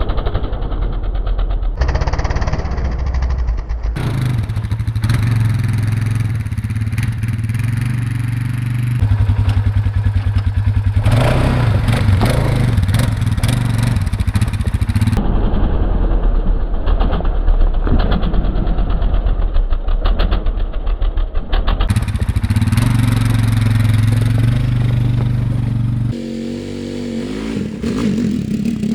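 2014 Polaris Sportsman 570 ATV's single-cylinder engine running under load, in several spliced stretches. In the last few seconds its pitch rises and falls as it revs.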